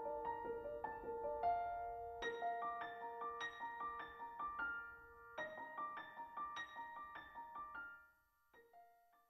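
Piano music playing a slow melody of single ringing notes, fading out about eight seconds in.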